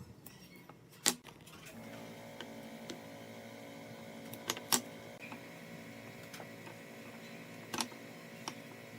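Several sharp clicks and knocks, as of wood or hardware being handled, over a steady multi-toned hum that starts about two seconds in.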